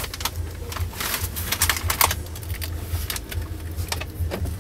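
Handling noise inside a truck cab: irregular light clicks and taps over a low steady hum.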